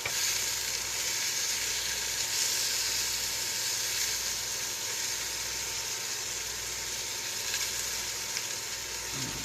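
Bacon strips sizzling steadily in an uncovered frying pan.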